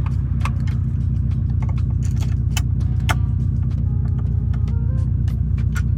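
Subaru Impreza's turbocharged boxer engine idling steadily while warming up, with a series of sharp clicks and small knocks as parts are fitted.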